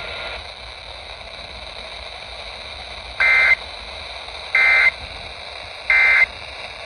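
Emergency Alert System end-of-message signal: three short bursts of warbling two-tone digital data over steady radio hiss, a little over a second apart, marking the end of the alert.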